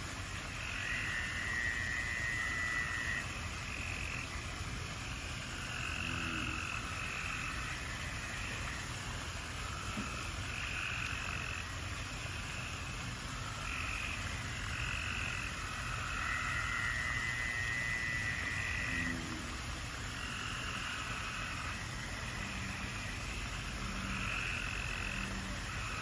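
A chorus of frogs calling over water, overlapping croaks rising and falling in repeated bouts, with a long even trill twice and deeper croaks near the end. A steady low hum runs underneath.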